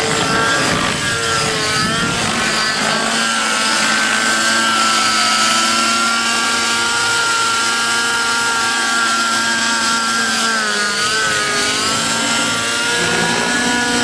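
Radio-controlled model helicopter's motor and rotor running at high speed, a steady buzzing whine whose pitch dips and rises as the helicopter dives and pulls out, and again near the end.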